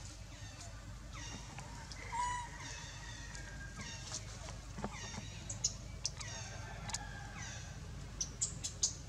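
Many short, high chirping calls that slide downward in pitch, repeated throughout, with one louder call about two seconds in and a quick run of sharp clicks near the end.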